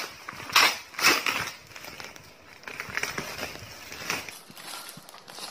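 Plastic sacking rustling and crinkling as a wrapped cardboard box is handled. There are two louder rustles about half a second and a second in, then lighter, irregular crackling that dies down after about four seconds.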